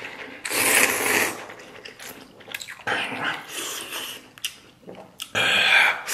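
A person slurping up a long mouthful of rice noodles from spicy luosifen broth, twice: one loud slurp about half a second in and another near the end, with softer mouth sounds between.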